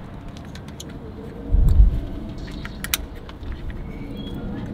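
Light clicks and rattles of loose wiring and plastic electrical connectors being moved by hand in a car engine bay, with a low dull thump about one and a half seconds in.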